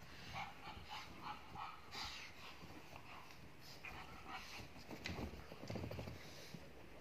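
Two pugs playing on a bed, making a run of short, soft dog noises. About five seconds in comes a spell of low rustling and bumping.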